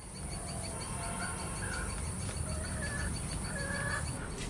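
Outdoor garden ambience: birds calling in short whistled notes over a steady high insect chirring, with a low rumble underneath.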